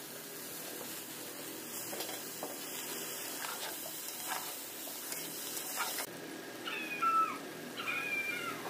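A cat meowing about three times in the last two seconds, short calls that fall in pitch. Before that there is only faint hiss with a few soft taps.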